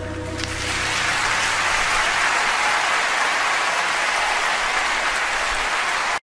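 Audience applauding as the last held note of the song dies away; the applause stays steady, then cuts off suddenly near the end.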